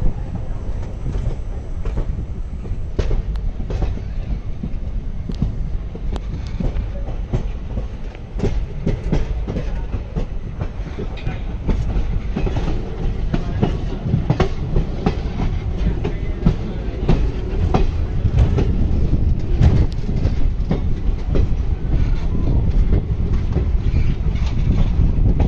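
Passenger train running along the track, heard from aboard: a steady low rumble with rapid, irregular clicks and knocks of wheels over rail joints, a little louder from about halfway.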